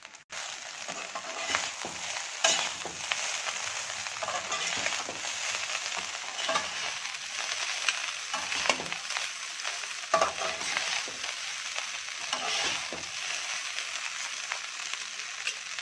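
Chicken fried rice sizzling in a wok while a steel spatula stirs and tosses it, the spatula scraping and clicking against the pan at irregular moments.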